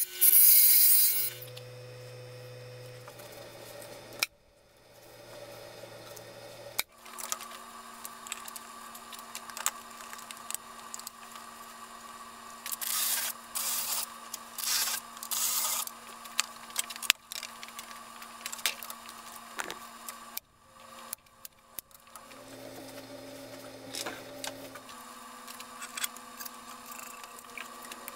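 Wood lathe running with a steady motor hum, a turning gouge cutting wood briefly at the start, and a few short bursts of power sanding in the middle from a cordless drill with a sanding pad pressed on the spinning wood.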